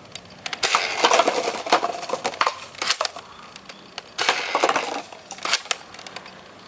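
Hard plastic toy blasters being handled and knocking together, heard as two bursts of clattering clicks and knocks.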